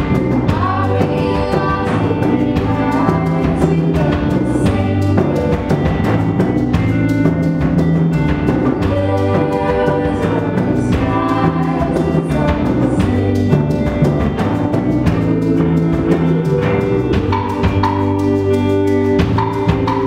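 Live band playing a song: electric guitars, bass and a drum kit keeping a steady beat, with women's voices singing.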